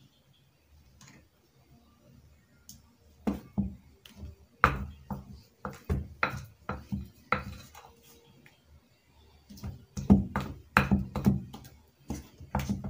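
Wooden spoon beating thick puff puff batter in a glass bowl: irregular knocks and wet slaps, two or three a second. They start a few seconds in, ease off briefly past the middle, then come faster near the end.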